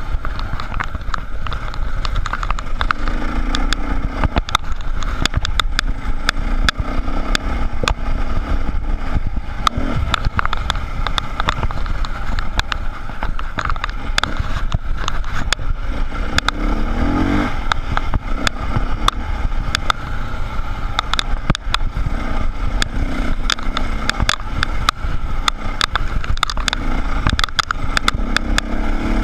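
Dirt bike engine running hard and revving as it climbs a rocky trail, with the pitch swelling up and down several times. Many sharp clicks and knocks from stones and the rough ground mix in.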